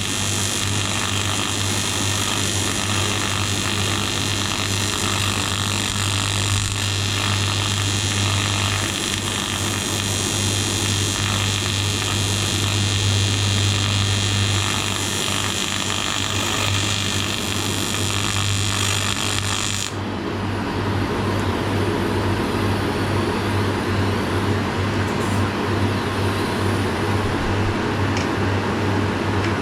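AC TIG welder buzzing steadily while welding the aluminium cylinder head, with a strong low hum under a hiss. About two-thirds of the way through the hiss cuts out and a different, lower steady machine noise takes over.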